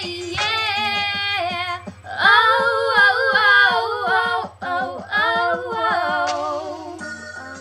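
A young woman's voice singing a drawn-out, ornamented R&B melody with no clear words, layered in two vocal parts.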